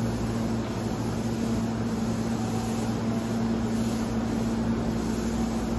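Hankyu 1000 series electric train standing at the platform, its onboard equipment giving a steady, unbroken hum.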